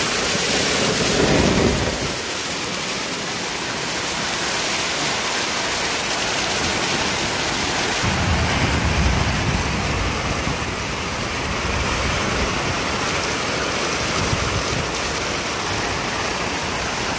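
Heavy tropical-storm rain pouring down steadily and splashing onto a flooded concrete lane, an even hiss. A low rumble comes in about eight seconds in.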